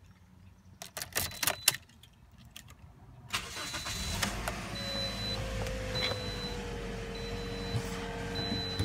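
Keys clicking at the ignition of a 2010 Toyota Corolla. About three seconds in, its four-cylinder engine starts and settles into a steady idle, while a warning chime beeps about once a second.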